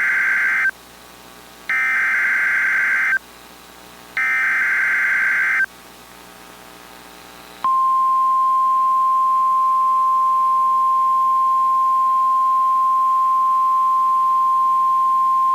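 Emergency Alert System SAME header: harsh warbling data bursts, each about a second and a half long with a second's gap, the end of one and then two more. About eight seconds in, the steady 1050 Hz NOAA Weather Radio warning alarm tone begins, announcing the special marine warning that follows.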